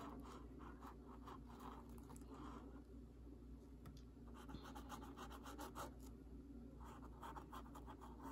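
Faint scratching of a small paintbrush's bristles on textured canvas as black paint is brushed on, in several short runs of strokes.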